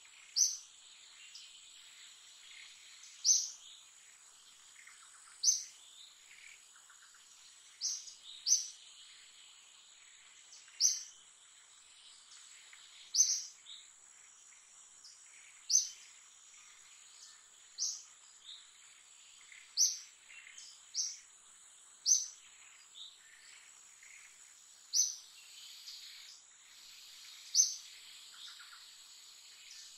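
A bird calling in short, sharp, high-pitched chirps about every two to three seconds, over a steady high insect drone.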